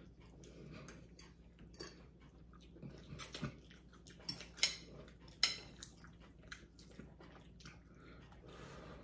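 Two people eating noodle soup: chewing, with irregular light clicks of forks and spoons against ceramic bowls, a few sharper ones in the middle.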